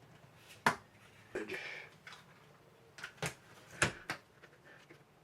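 A handful of sharp clicks and knocks, with short scrapes between them, as small parts and screws of a Daisy 880 air rifle are handled and set down during disassembly.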